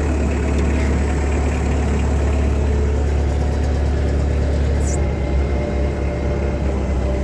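Kubota's diesel engine idling steadily, with a strong low hum.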